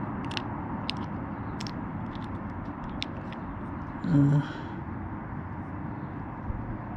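A few light clicks and taps of small plastic actuator parts being handled, over a steady hum, with a short murmur of a voice about four seconds in.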